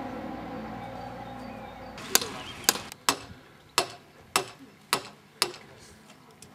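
A steady machine hum fades out over the first two seconds. Then about seven sharp knocks follow, one every half second or so, as interlocking paving blocks are struck while being laid.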